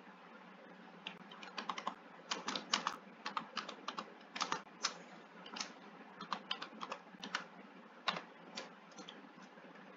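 Computer keyboard typing: irregular keystroke clicks in short runs, starting about a second in, as a line of code is typed.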